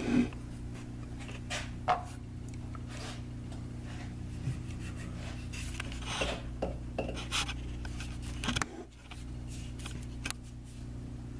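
Scattered clinks, taps and rubbing of metal parts and tools being handled, over a steady low motor hum that dips briefly about nine seconds in.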